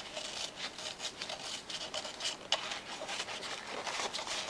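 Foam lining being peeled and pulled away from the hard plastic head shell of a 1992 Playskool Teddy Ruxpin: irregular scratchy rubbing and crackling, with one sharper click a little past halfway.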